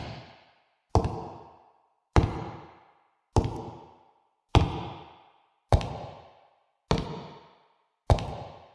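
Slow, heavy footsteps of a horror-style sound effect, one step about every 1.2 seconds, each a sharp hit with an echoing tail that dies away before the next.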